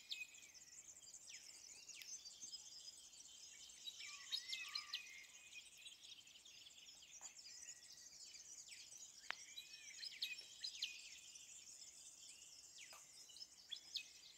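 Quiet bush ambience of several birds chirping and whistling, with short calls that rise, fall and step in pitch. A few faint clicks come through near the middle and end.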